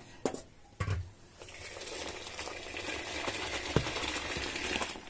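Warm milk poured in a stream from a height out of a steel pan into a steel vessel, a steady splashing pour for about three and a half seconds that froths the milk. It is preceded by two light knocks.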